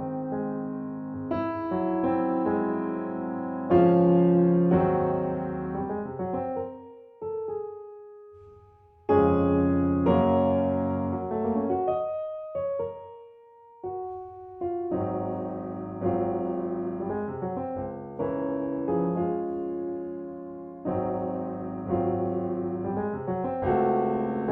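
Background music: solo piano playing slow, sustained chords, with a brief pause about a third of the way in.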